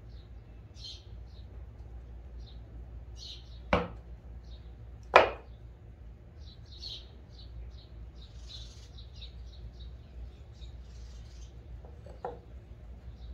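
Wooden board pieces knocking together twice, about a second and a half apart, then once more softly near the end, as glued-up cutting-board pieces are pressed and tapped into line. Small birds chirp steadily in the background over a low hum.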